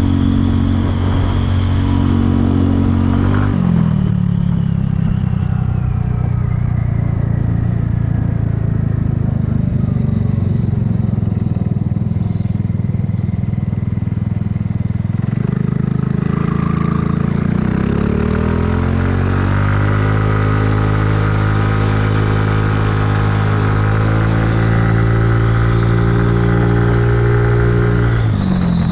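Kymco People 250 scooter's single-cylinder engine running under way, its exhaust leaks sealed with high-heat epoxy so it sounds quieter. The engine note drops about three seconds in as it slows, climbs in the middle as it accelerates, holds steady at higher speed, and drops again near the end.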